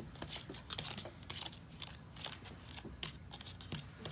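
Thin plastic water bottle crinkling and crackling in the hand with irregular small clicks as it is handled and water is poured from it into its cap.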